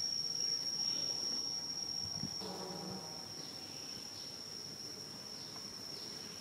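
Insects making a steady, high-pitched drone. A short pitched sound cuts in a little before halfway and lasts about half a second.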